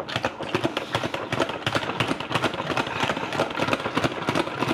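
Salad spinner whirling a load of soaked raw cut potatoes to fling the water off them, a fast steady rattle of clicks.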